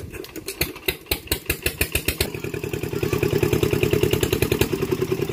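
Small engine of a water pump draining a pond, running with a rapid even beat that speeds up and grows louder over the first two to three seconds, then holds steady.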